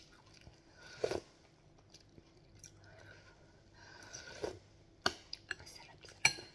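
Sipping and slurping soup broth from a metal spoon, and chewing. Near the end come a few sharp clinks of the spoon against the glass soup bowl.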